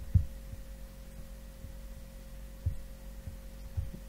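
Steady electrical hum with a faint steady tone above it, broken by a few short, soft low thumps.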